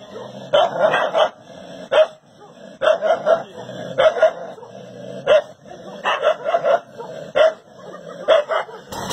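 A dog barking and yipping at its own reflection in a mirror, in short sharp barks about once a second, some single and some in quick runs of two or three.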